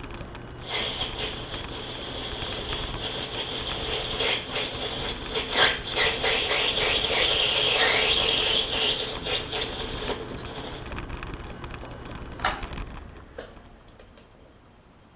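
Metal lathe powered up for a single-point threading pass: a steady whine from the spindle and gear train with scattered clicks. It starts about a second in and runs down to a stop between about ten and thirteen seconds.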